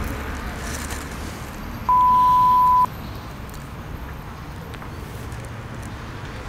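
A single pure, steady beep lasting about a second, about two seconds in: the edited-in bleep tone used to censor swearing on television. Under it runs a low rumble of outdoor traffic.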